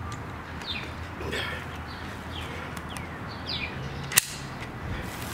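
Short falling chirps repeated several times, like a bird calling, with a single sharp click about four seconds in as the walker's parts are handled.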